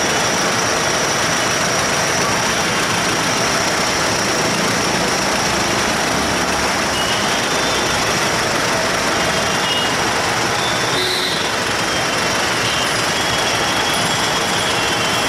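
Steady din of road traffic at a standstill: engines of motorcycles, cars, auto-rickshaws and trucks idling and creeping forward, with a few faint short high tones now and then.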